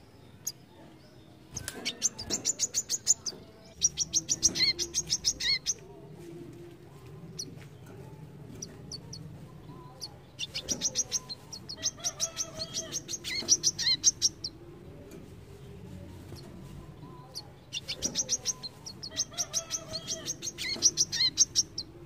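Male brown-throated sunbird singing: three bouts of quick, high chirping notes, each about four seconds long, with pauses of several seconds between them.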